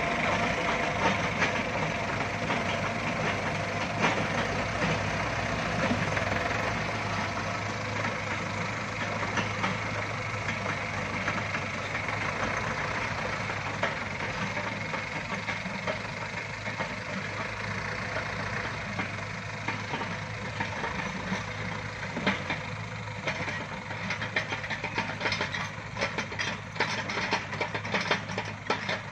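Diesel engines of a small dump truck and a Yanmar mini excavator running, a steady drone that slowly fades as the truck moves off. A run of sharp clicking knocks comes in over the last few seconds.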